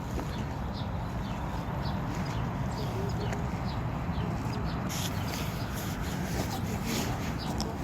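Outdoor ambience: many small birds chirping over a steady low rumble.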